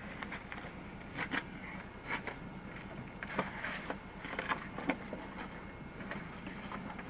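Dry fallen leaves and twigs rustling and crackling in irregular bursts as someone moves over them among rocks, over a steady low hum.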